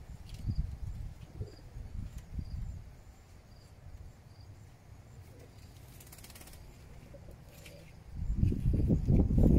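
Irregular low rumbling on the microphone, which becomes much louder and gustier from about eight seconds in, with faint high bird chirps in the background.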